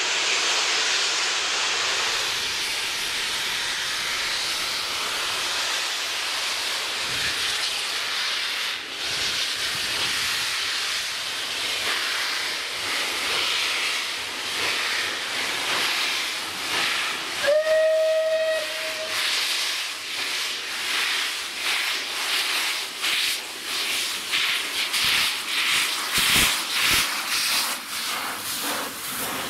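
Steam locomotive Eddystone, a rebuilt Bulleid West Country class Pacific, hissing loudly with escaping steam, then moving off with exhaust beats that quicken. A single short whistle blast sounds about halfway through.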